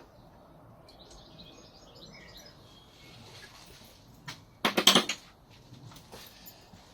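Metal hand tools working on the motorcycle's handlebar and fork clamp bolts: faint scraping and light ticks, then a quick run of loud, sharp metallic clicks and clinks about two-thirds of the way in.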